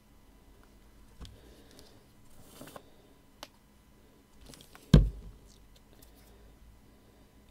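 Paper strips and card being handled, with a few small clicks and a brief rustle, then one sharp thump about five seconds in, the loudest sound, as a glue bottle is set down.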